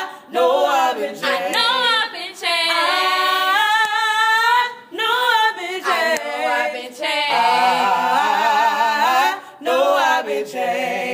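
A group of voices singing a cappella in harmony: a series of long held notes, with short breaks between phrases.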